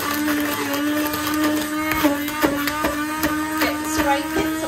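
Electric stick blender running in a plastic bowl of crumbly creamed butter and sugar: a steady motor whine with repeated clicks and knocks as the blade head works through the clumps. Its pitch dips briefly under load about two seconds in.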